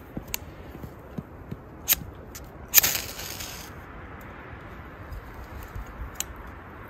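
Ferro rod struck with a steel scraper over wood shavings: a few short scratches, then one long rasping strike about three seconds in, throwing the sparks that light the shavings.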